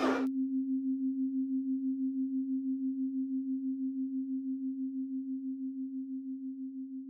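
A busy mix of voices and music cuts off abruptly just after the start, leaving a single steady low tone. The tone wavers in a quick, even pulse and slowly fades away.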